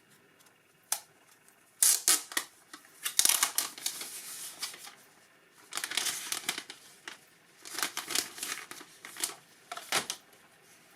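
Plastic wrap being pulled and torn off a power bank: bursts of crinkling and tearing, several of them over a few seconds, with pauses between.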